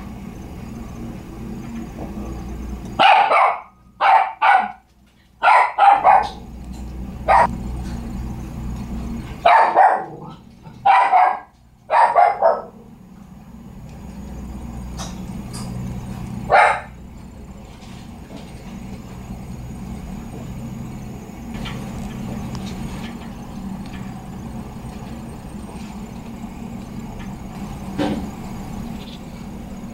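A dog barking in short bursts. There are two quick runs of barks in the first half, then single barks further apart that grow fainter, over a steady low hum.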